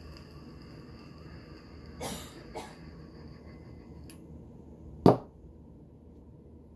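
A vape pen firing during a long draw, with a steady faint high-pitched whine that cuts off with a click after about four seconds. Two short noisy bursts come about two seconds in, and a single sharp knock, the loudest sound, comes about a second after the whine stops.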